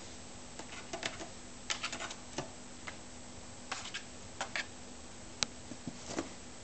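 Scattered, irregular light taps and scrapes of a cat pawing and shifting around inside a cardboard box.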